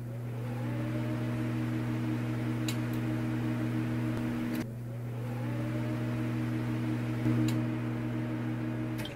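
A steady synthesized drone of a few low sustained tones, typical of a title-intro sound bed. It cuts off and starts again about halfway through, with a couple of faint ticks.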